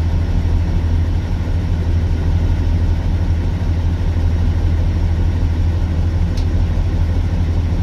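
Class 04 diesel shunter's Gardner 8L3 eight-cylinder diesel engine idling steadily, heard from inside the cab as a low, even drone, being run up to temperature after months out of use.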